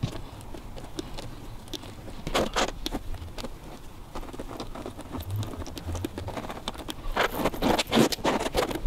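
Curtain fabric rustling with scattered small clicks and knocks as a blackout curtain's bottom edge is pushed into its track and the curtain is slid along by hand. The rustling gets louder about two and a half seconds in, and again for the last second or so.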